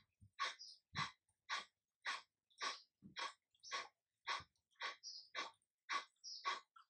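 Kapalabhati breathing: short, forceful exhalations through the nose, evenly spaced at about two a second, with near silence between.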